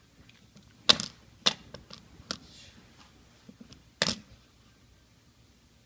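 Fidget spinners being handled and set down on a hard surface: a few sharp clacks, the loudest about a second in and again about four seconds in.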